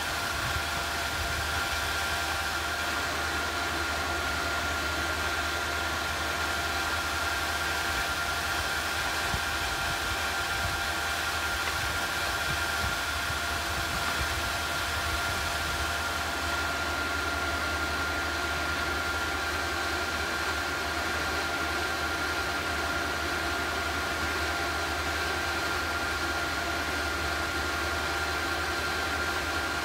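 Small induction heater running steadily as it heats a graphite crucible of bronze: an even whirring hiss with a steady high whine and a low hum underneath.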